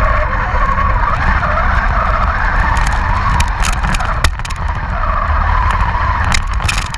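Radio-controlled Panther tank driving over snow, heard from a camera mounted on its hull: a steady whine from its drive motors and gearboxes that wavers up and down, over a low rumble, with a few sharp clicks.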